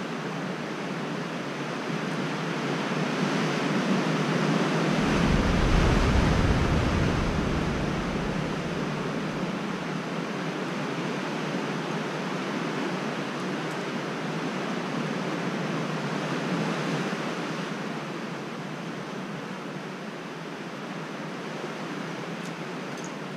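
Ocean surf washing against the sea cliffs: a steady rushing roar that swells to its loudest about six seconds in and then eases off, with a deep rumble under it for a few seconds at the peak.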